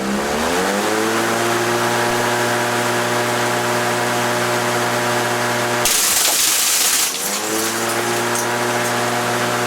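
Lawnmower engine spinning up over the first second and then running steadily at full speed. About six seconds in, a harsh crunching noise of about a second as the blade shreds floppy disks; the engine bogs down and then speeds back up.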